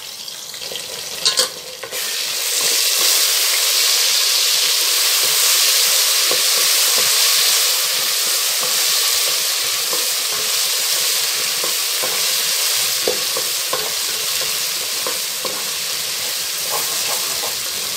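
Chopped onions and ginger-garlic paste frying in hot oil in a pot, sizzling steadily while being stirred, with a spoon knocking against the pot a few times at the start. The sizzle jumps up sharply about two seconds in and stays loud.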